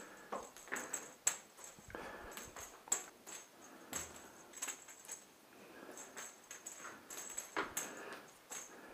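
A wand cat toy with a small ball tapped and dragged over the floor and rugs during play: scattered taps and scraping with bursts of light jingling, and a few sharp knocks.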